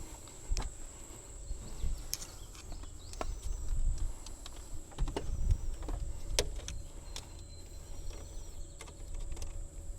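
Scattered clicks and dull knocks of hands and tools working on the car, with heavier knocks around two, four and five seconds in, over a steady high-pitched drone.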